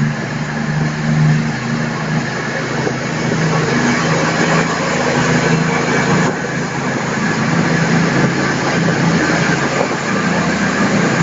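A CrossCountry Voyager diesel multiple unit pulling out under power, its underfloor diesel engines giving a steady low drone as the cars move past close by. The engine note shifts slightly in pitch through the passage.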